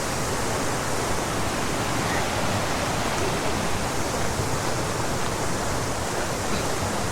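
Steady rush of flowing mountain water, a stream or cascade running over rocks.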